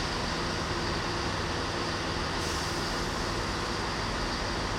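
DRS Class 20 and Class 37 diesel locomotives' English Electric engines running with a steady drone, a high hiss rising about halfway through.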